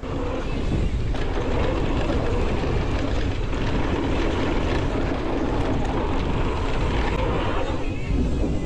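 Loud, steady wind noise buffeting the camera microphone, mixed with tyre and trail noise from a mountain bike riding fast downhill on a dirt trail. It starts suddenly.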